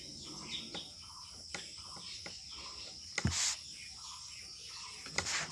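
Crickets chirping steadily in the background, with two short hissy sounds about three and five seconds in.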